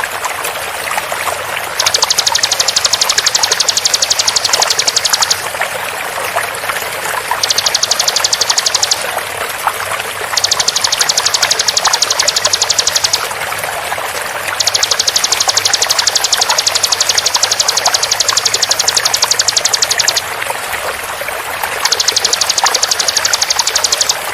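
Bar-winged prinia (ciblek) singing its rapid-fire 'tembakan' song: five bouts of very fast, tightly spaced high notes, the longest about six seconds, separated by short pauses. Underneath runs a steady sound of flowing water.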